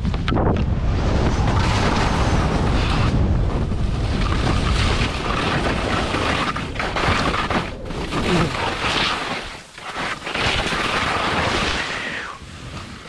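Wind buffeting the microphone of a head-mounted camera during a fast ski descent, a rough low rumble, with the hiss and scrape of skis on snow. The rumble dips briefly about ten seconds in.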